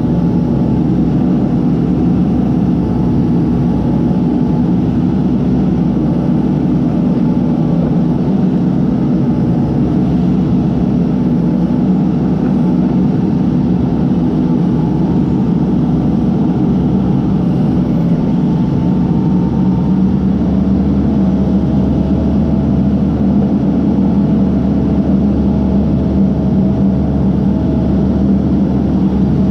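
Case backhoe's diesel engine running steadily, its pitch shifting slightly about twenty seconds in.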